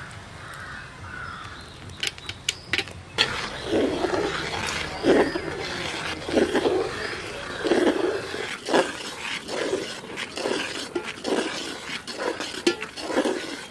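Steel ladle stirring thick payasam in a large aluminium pot, scraping and sloshing in repeated strokes about one a second, after a few sharp metal clicks about two seconds in.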